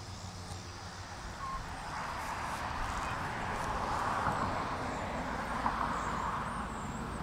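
A car passing on a road: tyre and road noise swells over the first couple of seconds, holds, then slowly fades.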